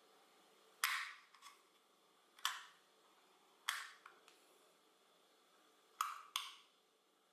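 A few sharp clicks and knocks, some in quick pairs, from small wooden and metal parts of a puzzle-box mechanism being handled, each dying away quickly.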